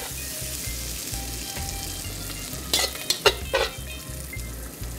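Sliced bell peppers, onions and mushrooms sizzling in a hot wok while metal tongs stir them and lift them out. A few sharp clinks of the tongs against the wok come about three seconds in.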